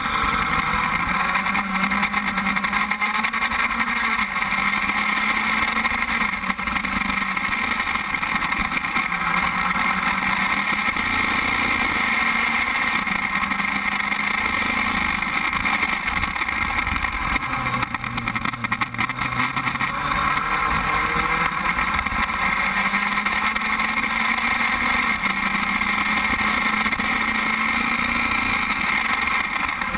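Onboard sound of a Formula Speed 2.0 open-wheel race car's engine running at speed. Its note rises and falls gradually several times as the revs change.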